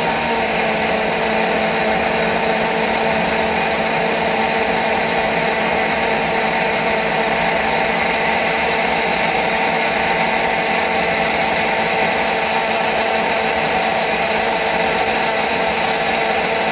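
Countertop blender running at a steady full speed, blending a green spinach smoothie with milk, oats and ice. Its motor whine is loud and even throughout.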